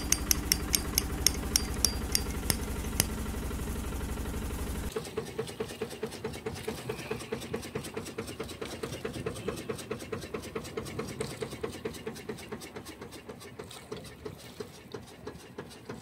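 A boat engine running with a fast, even beat. About five seconds in it changes abruptly from a heavy, low rumble with sharp clicks to a lighter, quieter pulse.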